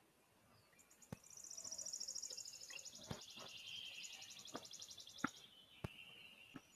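Faint, high, rapid trill of a songbird in the surrounding forest, lasting about four seconds, with several sharp clicks scattered through it.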